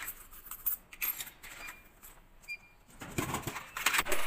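Drink vending machine in use: scattered coin and button clicks with a couple of very short high beeps, then a louder clattering thud about three seconds in.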